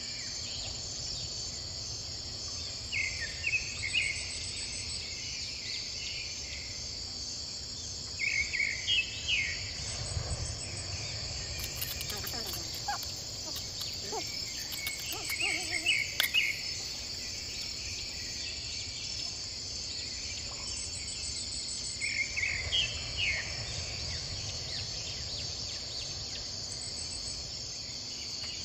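A steady chorus of crickets and other insects, with a bird calling in short bursts of chirps every several seconds. A few faint taps come midway, as a knife works chillies and garlic in a clay bowl.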